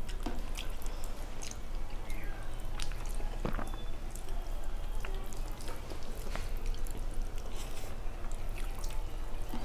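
Hands mixing and squishing soft, starchy fena bhat on plates, with scattered small wet clicks and the smacks of eating by hand.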